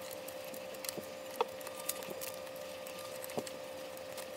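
Light handling sounds: a few small clicks and taps as the Ender 3 display unit is handled and fitted back onto the printer's frame, over a faint steady hum.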